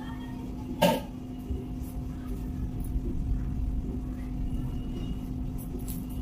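A steady low hum with a low rumble underneath, and a single sharp click about a second in.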